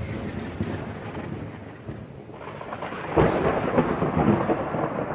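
Thunder sound effect: a rolling rumble fading away, then a second crackling peal of thunder about three seconds in that rumbles on.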